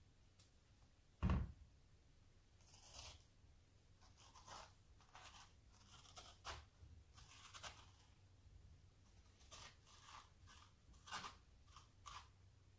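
A metal spoon scraping seeds and stringy pulp out of a halved raw spaghetti squash, in a run of short, irregular scrapes. There is a single thump a little over a second in.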